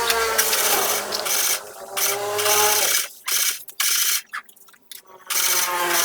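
Electric power tool run in several short bursts, each a whine over a bright hiss, the pitch sinking as it loads up during the longer bursts.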